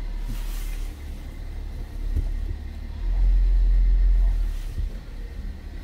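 Low rumble of a car pulling slowly away from a standstill, heard from inside the cabin, swelling louder for about a second midway.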